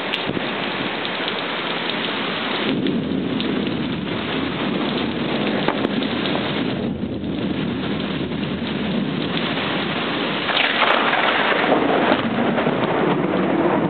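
Heavy rain falling steadily during a thunderstorm, with thunder rumbling under it. The rain gets louder about ten seconds in.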